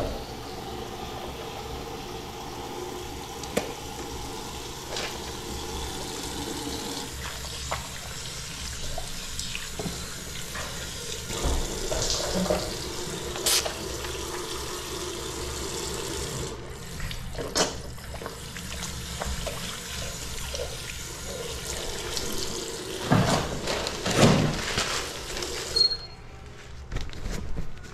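Water running from a tap into a sink during hand washing, with scattered knocks and splashes as the hands move under it; the tap is turned off near the end.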